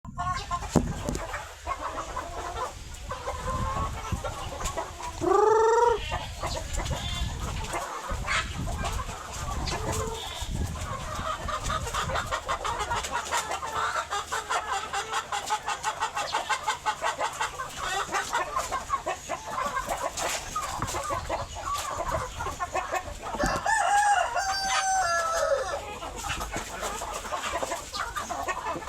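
A flock of chickens clucking steadily, with a rooster crowing about five seconds in and again about 24 seconds in.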